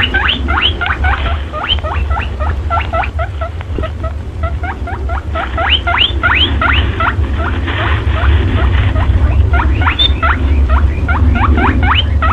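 Lure call used by trappers to draw in perentie monitor lizards: a dense run of short, high squeaks, each rising in pitch, several a second, over a steady low hum.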